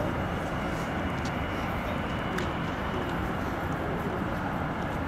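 Boeing C-17 Globemaster III's four turbofan engines running as it taxis, heard as a steady rumble with a faint, even high whine.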